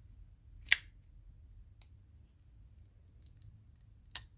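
Ontario RAT Model 1 folding knife clicking as its blade is worked: a sharp snap about a second in and another near the end, with a few faint ticks between.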